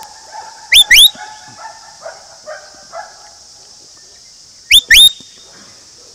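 Huntaway dog barking at a distance as it works cattle, with two pairs of very loud, short sounds that rise sharply in pitch, about a second in and again near five seconds.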